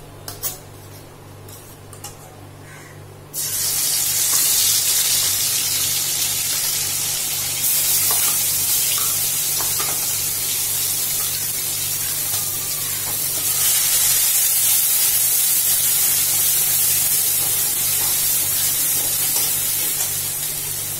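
Chopped garlic frying in hot oil in a kadai: after a few light clicks, a loud hissing sizzle starts suddenly about three seconds in as the garlic goes into the oil, and runs on steadily.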